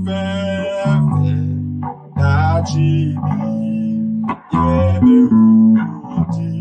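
Bass guitar playing a short phrase of sustained low notes that change about once a second, with two brief breaks. It sounds the 5 together with the 3 of the chord, a substitution for the 7.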